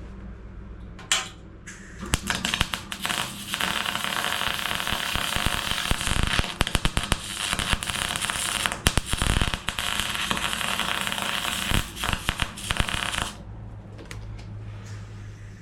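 Welding arc crackling and spitting as a weld is laid on the corner of a Range Rover Classic's steel sill panel, one run of about eleven seconds with brief breaks near the end. A single sharp click comes about a second in, before the weld starts.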